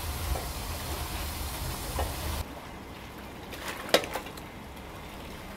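Tap water spraying into a large iron wok as it is scrubbed with a bamboo brush: a steady hiss with a low rumble that cuts off about two and a half seconds in. Then a quieter background with a single sharp knock about four seconds in.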